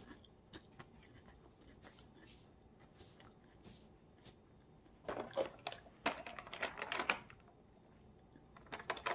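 Faint crunching as crispy seaweed snack is chewed, then a crinkly plastic snack bag rustling and crackling as it is handled, from about five seconds in and again near the end.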